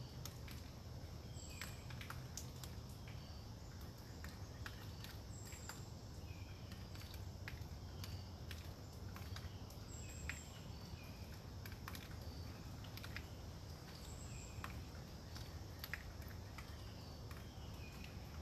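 Faint post-storm forest ambience: a steady low wind rumble, with scattered irregular drips or light patter ticking on the leaves. Short high chirps come about every four seconds.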